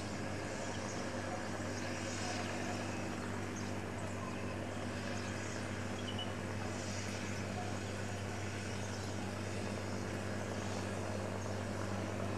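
A steady low mechanical hum over an even background hiss, unchanging in level throughout.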